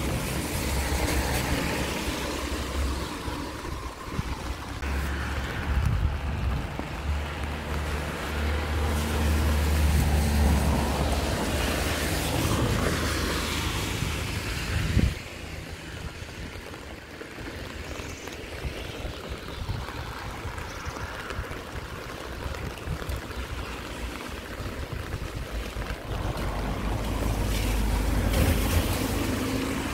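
Traffic on a wet road: passing cars with tyres swishing on the wet asphalt, and a low rumble that swells and fades. One sharp knock about halfway through, after which it is quieter for a while before another car builds up near the end.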